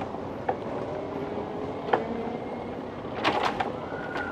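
Bicycle rolling over cobblestones: a steady rumble from the tyres on the stones, broken by sharp rattles and knocks as the bike jolts, once about half a second in, again near two seconds and several times a little past three seconds.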